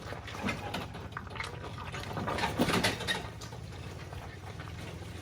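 Pickup truck engine running at low revs during slow off-road crawling, with scattered crackles and clicks over it, busiest about two to three seconds in.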